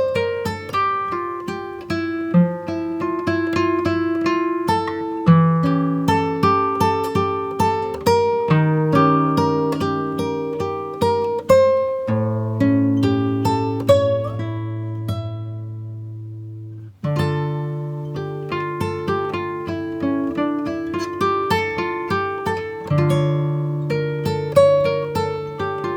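Background music: acoustic guitar picking notes and chords, with a chord left to ring out about two-thirds of the way through before the playing resumes.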